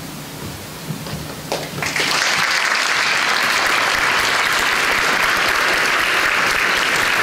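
Audience applause breaks out suddenly about two seconds in and carries on steadily, following a quieter hiss.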